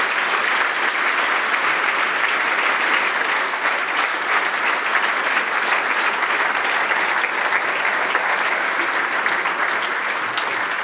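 Audience applauding steadily, a dense, even clapping that neither swells nor fades.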